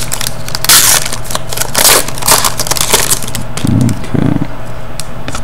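Foil wrapper of a Panini Pinnacle hockey card pack crinkling and tearing as it is pulled open, in several short crackling bursts over the first three seconds, followed by quieter handling of the cards.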